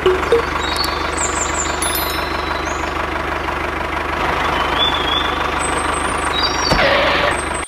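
Tractor engine running steadily with a fast, even chugging.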